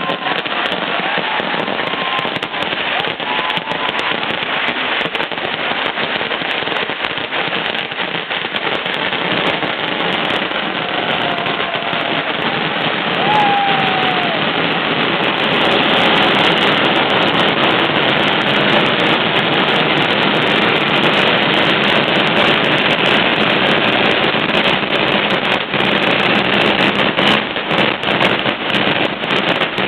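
Fireworks barrage of dense firecracker strings: countless rapid bangs merging into a continuous crackling rattle, growing louder about halfway through. A couple of short whistling tones sound over it, one falling in pitch.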